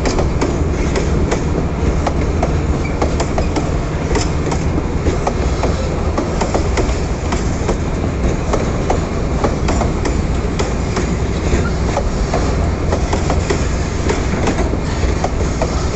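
Loaded freight wagons rolling past: a steady low rumble with many short, irregular clicks from the wheels going over rail joints.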